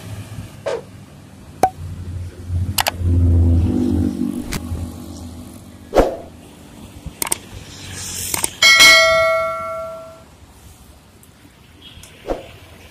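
Passing road traffic, with a bus or truck engine rumbling by, and several sharp clicks. About nine seconds in comes a loud bell-like ding that rings and fades over a second or so, the notification-bell sound of a subscribe-button overlay animation.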